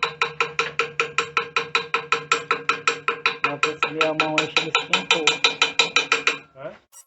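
Background music with a fast, even percussive beat, about six or seven hits a second, over held tones; it stops shortly before the end.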